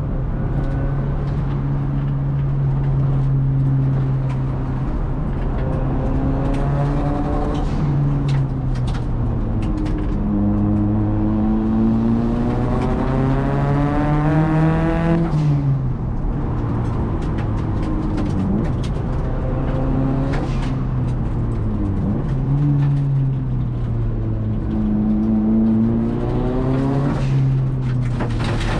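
Turbocharged Nissan SR20DET four-cylinder engine of a big-turbo S13, heard inside the cabin under way. Its pitch climbs steadily for several seconds as it pulls, then falls sharply about halfway through, and climbs and falls again near the end.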